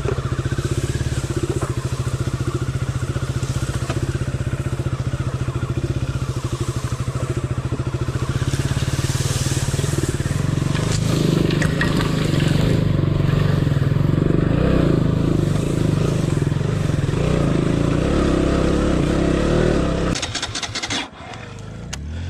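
Motorcycle engine running hard under load on a steep off-road climb, getting louder about halfway through, then cutting off about a second before the end.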